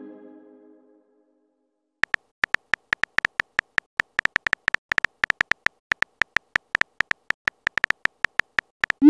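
Texting-app keyboard sounds: rapid, uneven key-tap clicks, each a short high beep, about five a second, as a message is typed letter by letter. A chime fades out in the first second, and a quick rising swoop starts right at the end.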